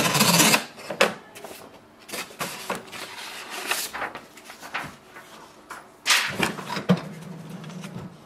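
The plastic paper guide of an HP Smart Tank 5101's rear input tray slides and clicks into place as paper rustles against it, with a loud scrape at the start and another about six seconds in. After that the printer's mechanism starts running with a steady low hum.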